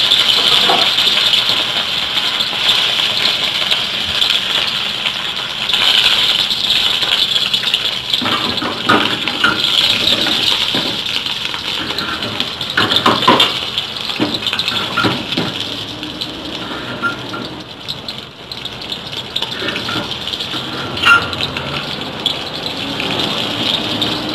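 Flour-dusted fish frying in hot oil in a wok, with a steady sizzle. A few sharp clinks and knocks, mostly in the middle and once near the end, come as the metal lid is handled over the wok.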